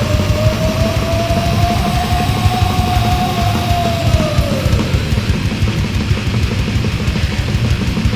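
Thrash metal recording with dense, fast drumming and heavy guitars. A single long held note rides on top, slowly rising in pitch, then bending down and dropping away about four and a half seconds in.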